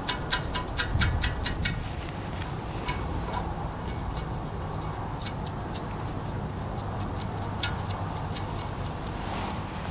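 Light, sharp clicks and taps of small metal hardware being handled while exhaust nuts and bolts are worked by hand, quick and clustered in the first two seconds, then scattered. A steady low hum runs underneath.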